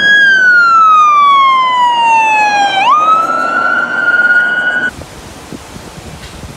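Fire engine siren sounding as the truck drives past. Its pitch falls slowly for about three seconds, then jumps back up and climbs again before cutting off abruptly about five seconds in, leaving faint wind noise.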